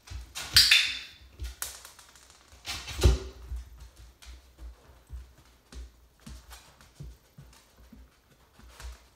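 Scattered taps, scuffs and knocks from a puppy moving about on a hard floor and against a wooden nail board. Two sharper knocks stand out, about half a second and three seconds in.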